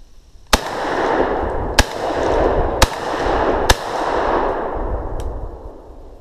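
Four shotgun shots fired about a second apart, each followed by a long rolling echo through the woods that fades out.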